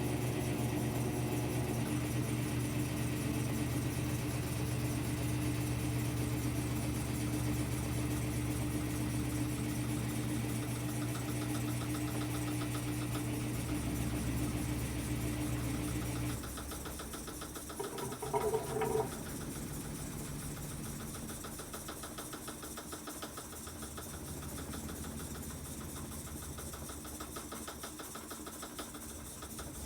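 Whirlpool top-loading washing machine running its drain and spin cycle: a steady machine hum that drops away and gets quieter just past halfway, with a brief louder noise a moment later, then a quieter steady run.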